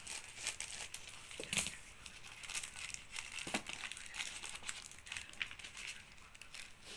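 Plastic mailer bag crinkling and rustling in irregular short crackles as it is cut open with scissors and pulled apart by hand.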